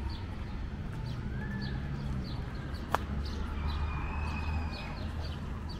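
Street ambience: a low rumble of traffic under a bird chirping over and over in short high notes. A single sharp click comes about three seconds in, and a held whistle-like note about four seconds in.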